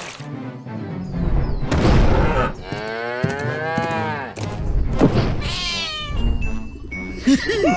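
Cartoon cow mooing: one long call that rises and falls in pitch, about three seconds in. A heavy thud comes about two seconds in, and another animal call comes around five seconds in.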